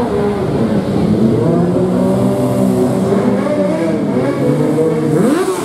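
A group of motorcycle engines running and revving as the bikes ride off together, several engine notes overlapping. Near the end one engine revs up sharply, its pitch climbing quickly.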